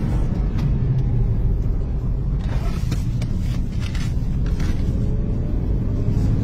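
Car driving, heard from inside its cabin: a steady low rumble of engine and road noise, with a few short knocks in the middle.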